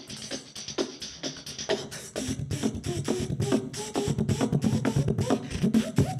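Two human beatboxers performing together into handheld microphones: fast mouth-made drum hits and snares. A heavy bass line joins about two seconds in, and the beat gets louder from there.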